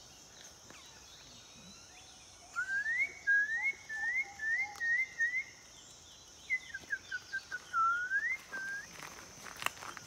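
A rufous-tailed jacamar's call: a run of about six quick, rising whistled notes, then after a short pause a quicker run of short falling notes ending in one long rising whistle.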